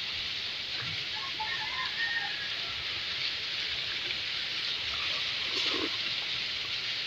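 Steady, even outdoor background hiss, with a few faint short calls about one to two seconds in.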